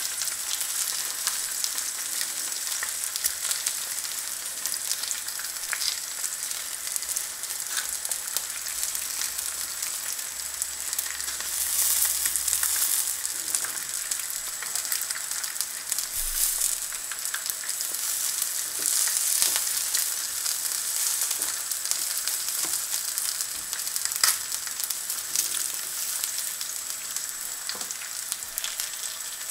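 Back bacon rashers and black pudding slices sizzling in a carbon steel frying pan: a steady hiss with scattered crackles of spitting fat, swelling a little now and then. One sharp tap stands out about two-thirds of the way through.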